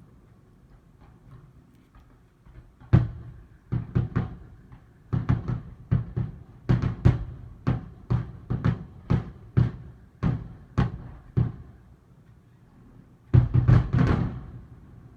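Fireworks shells bursting: a long run of booms with rumbling tails, one or two a second, and a dense cluster near the end.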